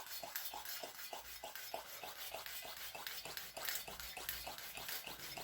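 Coleman gasoline camp stove's fuel-tank air pump being worked by hand to pressurise the tank: quick, even plunger strokes, about four a second, that stop suddenly near the end.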